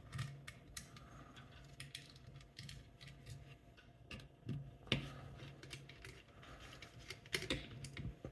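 Scattered small metal clicks and taps as an ERA Fortress lever lock is handled and taken apart, irregular, with a sharper click about five seconds in.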